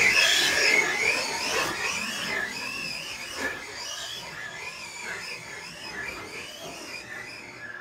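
Brushless electric motor and geared drivetrain of a 1/10 HSP Brontosaurus RC monster truck, giving a high whine that rises and falls with the throttle while the tyres churn loose dirt. The sound is loudest about the start and fades as the truck climbs away up the hill.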